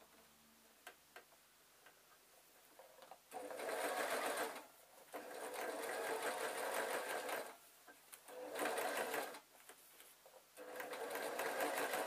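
Sewing machine stitching a seam, going over it to reinforce it. A few small clicks for about three seconds, then the machine runs in four bursts of one to three seconds each, with short pauses between.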